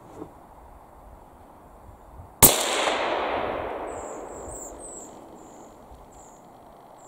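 A single hunting rifle shot about two and a half seconds in: a sharp crack, the loudest thing by far, followed by a long echo that dies away over about three seconds.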